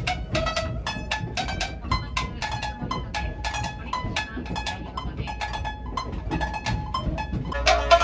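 Tsugaru shamisen played live, its strings struck with a plectrum in quick, percussive plucked notes, several a second; the playing grows louder and fuller near the end.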